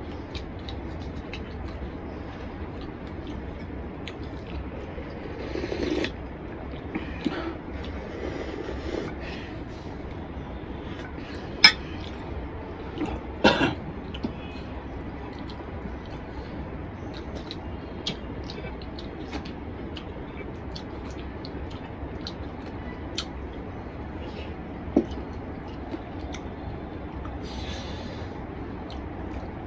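Fingers scraping and tapping on a ceramic plate while gathering the last of the rice and curry, with a few brief sharp clicks against the plate over a low steady background hum.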